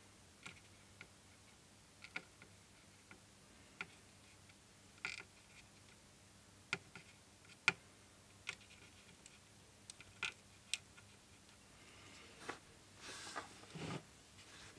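Faint, irregular small clicks and ticks from hand-soldering a circuit board, as the soldering iron tip and solder wire work solder onto the capacitor pads, with a brief rustle near the end.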